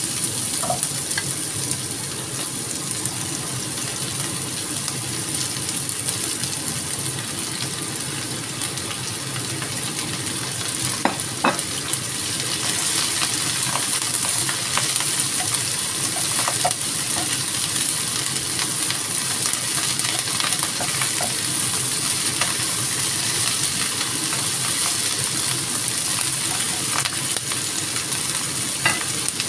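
Squid and vegetables stir-frying in a nonstick wok: a steady sizzle with the scrape and occasional tap of a silicone spatula tossing the food. The sizzle is a little louder from about twelve seconds in.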